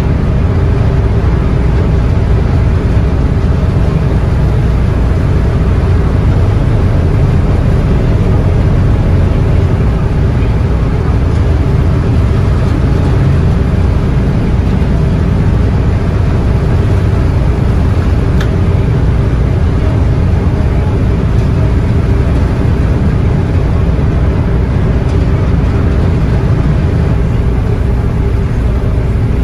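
High-speed passenger boat's engines running steadily as it pulls away from its pier, a loud low drone with a steady hum, heard from the open deck.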